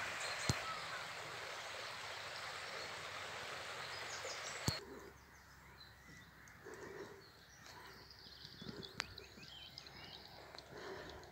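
A small stream running with a steady rushing hiss, which cuts off abruptly about five seconds in. After that a quieter open-air background with small birds chirping faintly.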